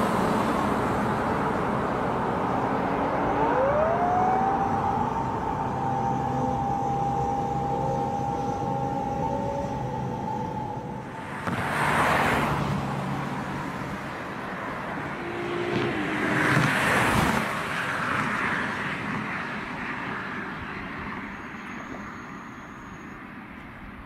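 Japanese police car siren: a wail rises and holds as one long steady tone for several seconds, over street traffic noise. Two loud rushes of passing traffic follow, and the sound fades toward the end.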